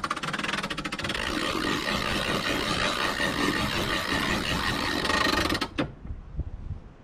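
Roof winder mechanism of a Jayco Swift camper trailer being hand-cranked to lift the roof, giving a fast, even ratcheting clatter that stops abruptly about six seconds in.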